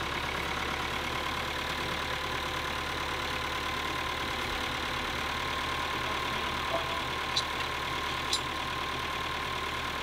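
Farm tractor engine idling steadily, with a constant whine over it. A couple of light clicks come near the end.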